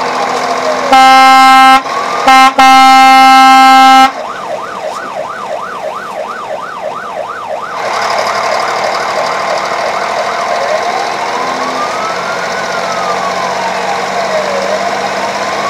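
Emergency-vehicle siren on a slow rising-and-falling wail, switching about four seconds in to a fast yelp of about three or four sweeps a second, then back to the wail near eight seconds. Around one to four seconds in, very loud horn blasts sound over it, a short one and then a longer one.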